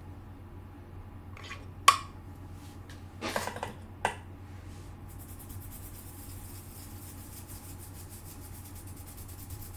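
A few small clicks and knocks of tools and parts being handled, the sharpest about two seconds in. From about five seconds in comes a soft, fast, even scrubbing hiss: a brush cleaning excess solder paste off a freshly reballed PS5 south bridge chip.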